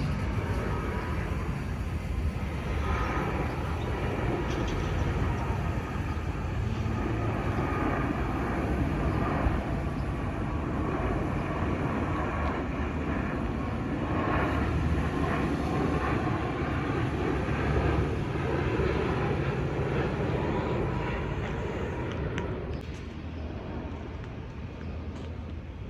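An airliner landing, its engines giving a steady rumble with a faint whine, fading away about 22 seconds in.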